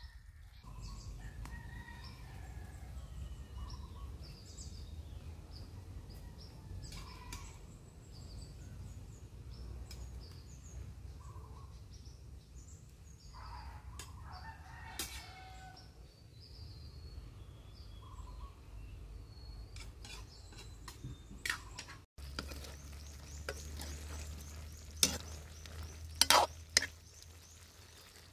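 A rooster crows once, about halfway through, over a steady low rumble and scattered bird chirps. Near the end, several sharp clinks of a metal ladle against the wok.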